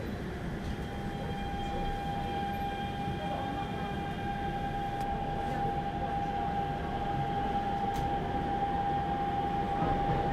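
Daegu Metro Line 1 subway train running, heard from inside the car: a steady rumble of wheels on track under a steady electric whine from the traction drive. The whine rises slightly near the end as the sound grows louder.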